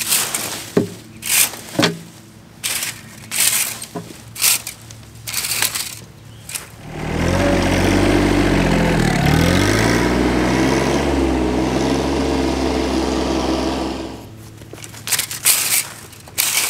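A leaf rake scrapes across bare soil and dead leaves in repeated strokes. From about seven seconds in, a compact tractor's engine runs loudly for about seven seconds as its loader bucket drags leaves and sod, its pitch dipping and coming back up once. Raking resumes near the end.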